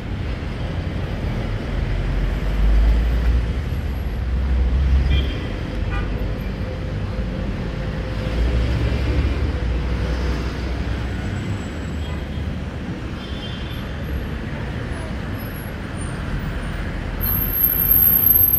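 Road traffic on a busy city street: car and van engines running and tyres passing close by, rising and falling, with a short horn toot.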